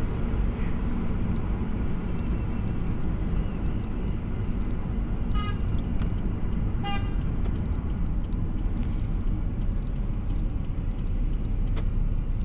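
Steady low road and engine noise inside a moving car, with two short car-horn toots about five and a half and seven seconds in.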